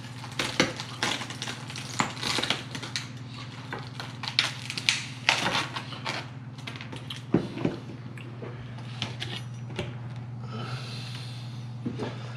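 Hard, smoked armored catfish shell cracking and clicking as it is pried apart by hand, with a chef's knife knocking and scraping on a plastic cutting board. Irregular clicks and knocks throughout, with a short scrape near the end.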